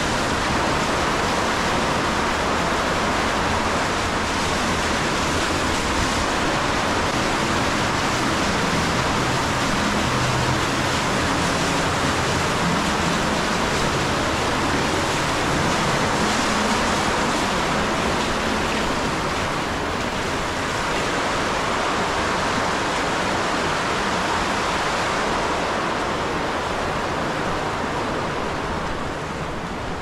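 Steady, even rush of flowing creek water.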